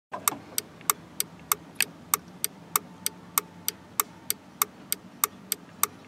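Turn signal flasher in a 2003 Jeep Wrangler clicking steadily, about three clicks a second, alternating a louder and a softer click as the flasher switches the lamps on and off.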